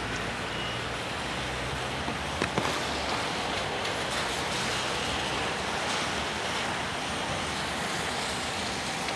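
Steady hiss of city traffic on wet streets, with a couple of short knocks about two and a half seconds in.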